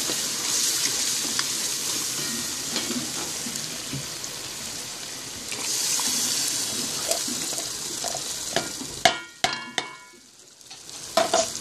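Sofrito and tomato sauce sizzling in a caldero while a wooden spoon stirs it. About halfway through, canned black beans with their liquid are poured in and the sizzle grows louder. Near the end come a few sharp, ringing metallic clinks.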